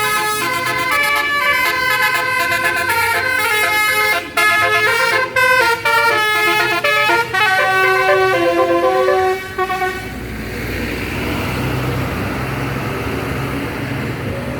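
A bus's basuri telolet horn, a multi-tone air horn, playing a melody of tooting notes that step up and down, with a few short breaks in the second half. About ten seconds in, the horn stops and the bus's engine and road noise carry on.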